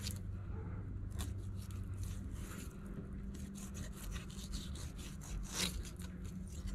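Fillet knife cutting a fillet off a flounder's backbone: faint scraping and small ticks as the blade runs along the bones, with a louder scrape about five and a half seconds in.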